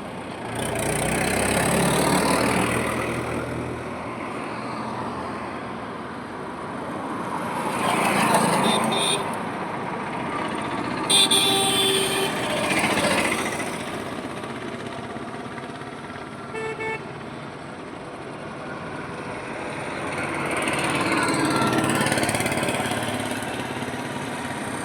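Highway traffic: vehicles pass one after another, the road noise swelling and fading as each goes by. A horn gives short loud blasts about eleven seconds in, and a fainter horn sounds briefly a few seconds later.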